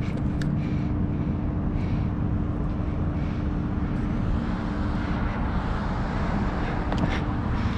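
Steady vehicle and wind noise with a constant low hum, broken by a couple of faint ticks.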